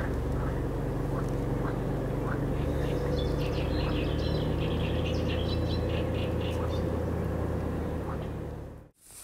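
A steady low engine-like drone, with birds chirping in the middle stretch; the sound cuts off abruptly near the end.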